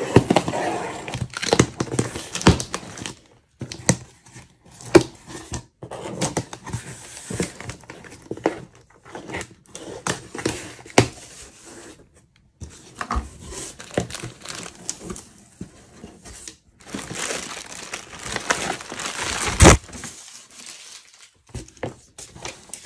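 Packing tape being torn and peeled off a cardboard shipping box, with cardboard flaps scraping and plastic packing crinkling, in irregular stretches broken by short pauses. One sharp, loud stroke stands out near the end.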